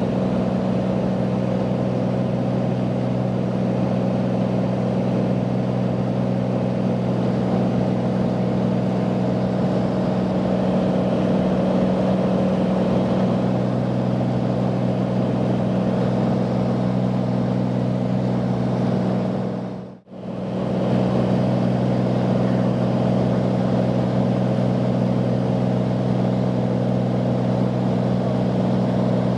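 Steady drone of a light aircraft's propeller engine heard from inside the cabin while the plane climbs. About two-thirds of the way through, the sound drops out sharply to near silence for a moment, then comes straight back.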